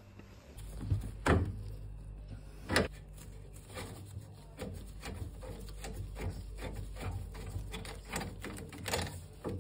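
Gloved hand handling the brass valves and copper pipework under a gas boiler: small clicks and rattles, with three sharper knocks spread through, over a steady low hum.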